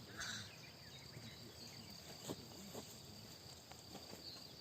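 Faint, steady high-pitched chirring of insects in the countryside, with a few faint bird chirps and a couple of soft clicks.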